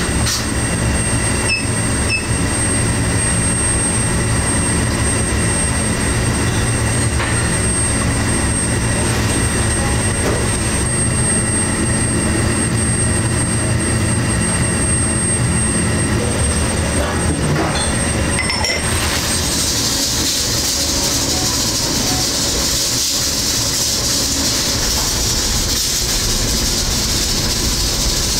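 Steady low roar of commercial kitchen equipment, with a faint high whine. About two-thirds of the way in, a loud steady hiss joins and the whine stops.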